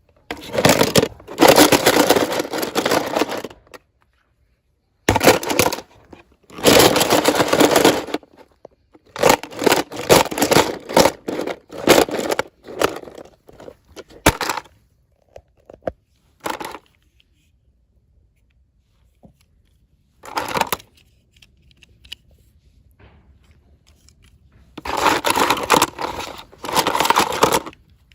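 Toy packaging being handled and torn open by hand, crinkling and scraping in bursts of one to three seconds with short pauses between them.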